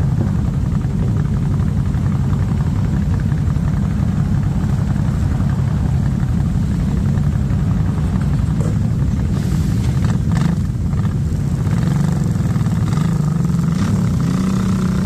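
Motorcycle engines running at a low, steady rumble in a slow-moving queue of bikes, with a few short clicks or knocks about ten seconds in.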